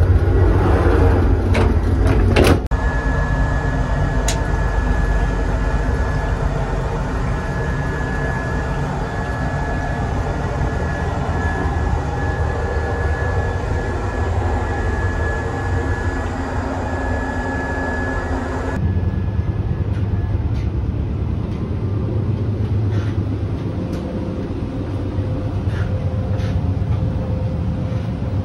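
Running noise of an ÖBB Railjet with Siemens Viaggio Comfort coaches, heard from inside the coach while the train is moving: a steady low rumble, with a sharp clack about two and a half seconds in and a thin high tone held through the middle.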